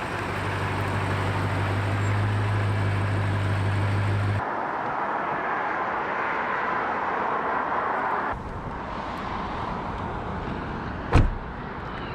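Car engine and road noise across several abruptly cut clips: a steady low engine drone for the first four seconds or so, then mostly even road and traffic noise. A single sharp knock comes near the end.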